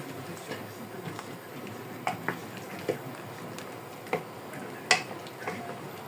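A few light clinks and knocks of a cooking utensil against a metal pot, scattered irregularly over a few seconds, some with a short ring.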